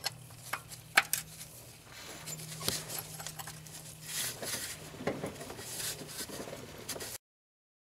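Steel combination wrench clicking and clinking against a stuck oil pan drain plug as it is fitted and pulled on, a few sharp metallic clicks spread through, with rustling in between. A low steady hum runs underneath.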